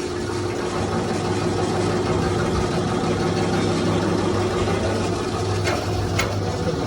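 Hydraulic press pump running with a steady hum, with a couple of sharp clicks near the end.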